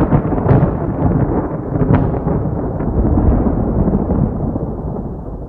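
A deep, continuous rumbling boom that slowly fades, with a few sharp cracks in it about half a second and two seconds in.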